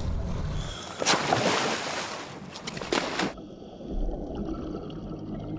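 Scuba divers jumping from a dive boat into the sea: a loud splash about a second in and another shorter one near three seconds, over wind and water noise. Then the sound turns muffled and low, the rush of water and bubbles heard from underwater.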